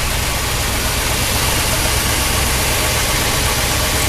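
The 1963 Ford Thunderbird's 390 cubic-inch V8 idling with a steady low rumble.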